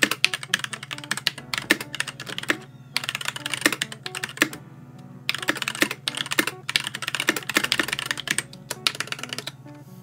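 Typing on a Varmilo VB87M mechanical keyboard with Gateron Clear linear switches: a rapid clatter of keystrokes in bursts with short pauses.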